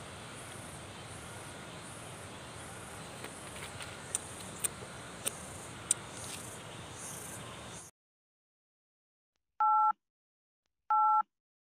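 Insects buzzing high-pitched in regular swelling waves, with a few sharp clicks. The sound cuts off abruptly about eight seconds in, and two short electronic beeps follow about a second apart, from a subscribe-button animation.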